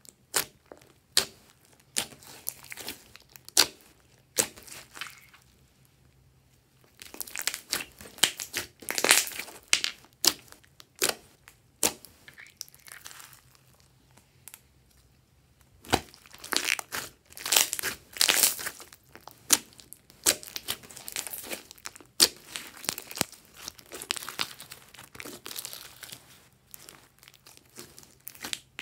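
Glossy slime being pressed, stretched and folded by hand: irregular sticky clicks and crackling pops as it squishes and lets out trapped air, in bunches with short quiet pauses between.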